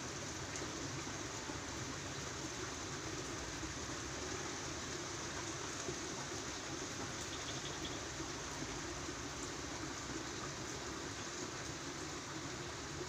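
Steady hiss of light drizzle, the tail end of a heavy downpour that is easing off.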